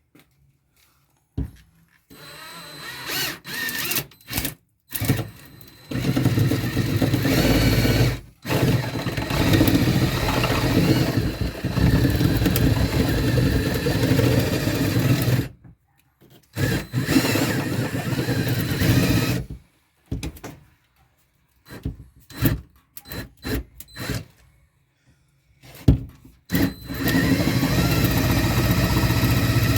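Electric drill with a small paddle bit boring a hole, run in bursts: short runs at first, then long steady runs of several seconds, stopping and starting several times.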